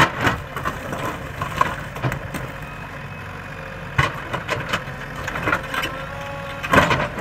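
JCB 3DX backhoe loader's diesel engine running steadily while its backhoe bucket digs among rocks, with irregular knocks and clatter of stone and steel, the loudest near the end.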